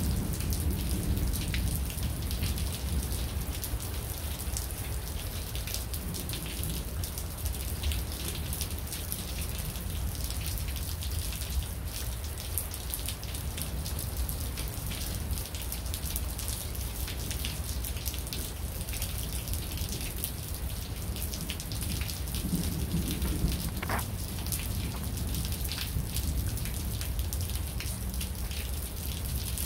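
Rain falling during a thunderstorm, with many small close ticks of drops hitting a surface over a steady low rumble.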